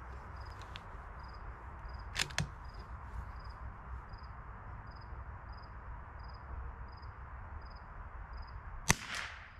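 A single shot from a Ruger Precision Rimfire .22LR rifle near the end: one sharp crack with a short echo after it. Before it, two short clicks come about two seconds in, over a faint high chirp that repeats about twice a second.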